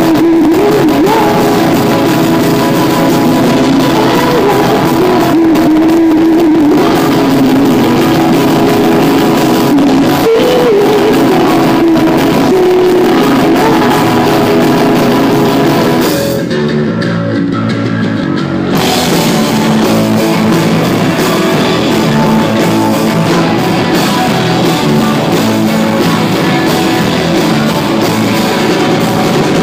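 Live indie punk rock band playing: electric guitar, bass guitar and drum kit, with a woman singing lead in the first part. A little past the middle the sound thins out for about two seconds before the full band comes back in.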